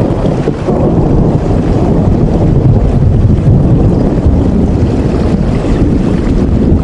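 Heavy rain falling steadily: a dense, even rush, deep and rumbling, that stays level throughout.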